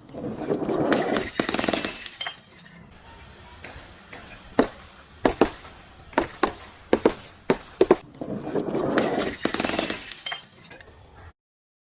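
Glass breaking and being crushed: a stretch of crunching and shattering, then a run of sharp separate cracks and clinks, then more crunching.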